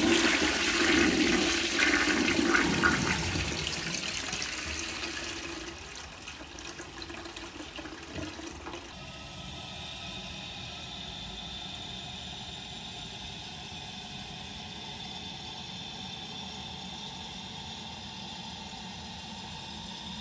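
Toilet flushing: a loud rush of water that dies away over about six seconds. From about nine seconds in, the cistern refills with a steady hiss and a thin whistling tone.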